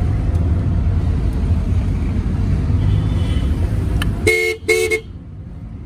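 Steady low road and engine rumble heard from inside a moving car, then a car horn gives two short toots about four seconds in.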